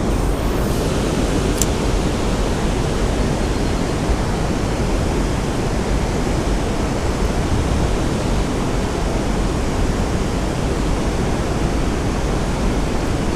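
Steady rushing of flowing river water, with one sharp click about a second and a half in.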